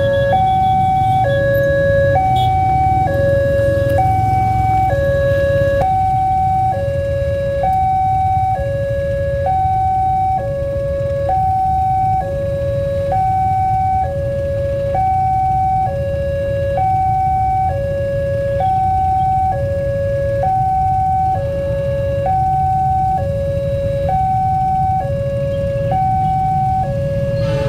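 Railway level-crossing warning alarm sounding a steady two-tone high-low signal, each tone lasting about a second, over the low rumble of idling motorcycles. The alarm signals that a train is approaching and the barrier is down.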